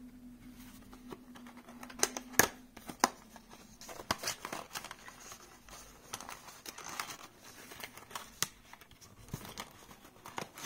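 Cardboard smartphone packaging being handled: sharp taps and clicks about two seconds in, then rustling and sliding of the paperboard insert against the box, with another tap near the end.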